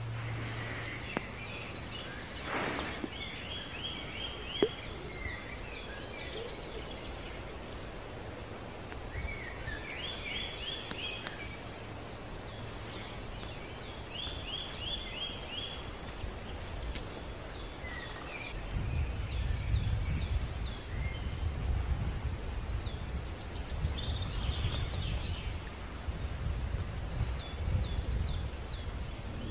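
Small songbirds singing in the forest: short phrases of rapid repeated notes every few seconds. Under them is a low rumble that gets louder about two-thirds of the way through.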